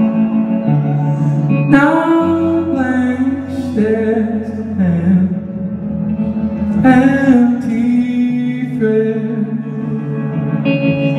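Live song: a man sings slow phrases, two or three in all, over sustained chords on an amplified hollow-body electric guitar, with the reverberation of a large hall.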